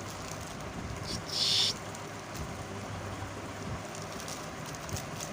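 Tiny kitten giving one short, high-pitched meow about a second in, over a steady low background hum.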